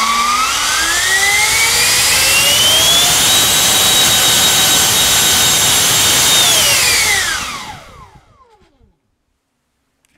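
90 mm electric ducted fan with a five-blade rotor, driven by a GoolRC 4082 1900 kV in-runner brushless motor on 8S, run up to full throttle: a loud whine rising in pitch over about three seconds. It holds steady at full power, drawing over 120 A and making about 3.7 kg of thrust, for about three seconds, then falls in pitch as it spins down and stops near the end.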